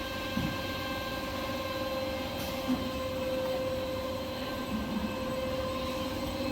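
Paper converting machine running: a steady mechanical hum with a constant whine, and a faint click about two and a half seconds in.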